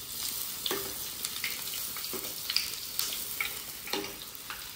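Bhatura deep-frying in hot oil: steady sizzling with scattered sharp crackles.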